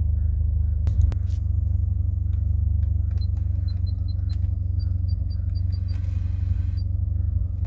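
Car engine idling with a steady low hum. A sharp click comes about a second in, then about a dozen short high beeps from the Pioneer touchscreen head unit as the steering wheel control buttons are pressed to test them.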